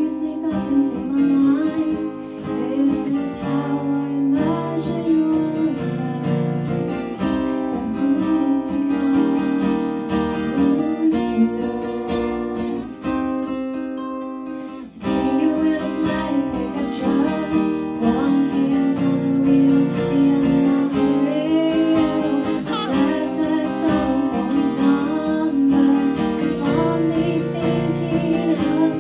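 Live acoustic song: two acoustic guitars strumming chords under a woman's singing voice. About halfway through the music thins out for a moment, then the full strumming comes back in sharply.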